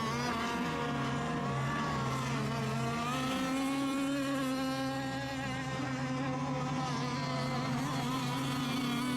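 Several radio-controlled racing boat engines running at once, a buzzing whine made of overlapping pitches that rise and fall as the boats throttle up and down.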